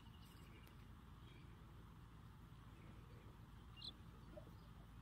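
Near silence: faint open-air ambience, with a faint fast high trill in the first second and one short high chirp about four seconds in.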